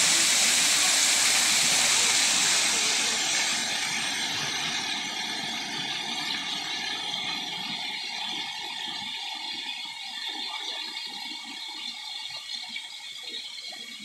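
Water pouring down an artificial rock waterfall into its pool: a steady rushing, loudest in the first few seconds and fading gradually after that.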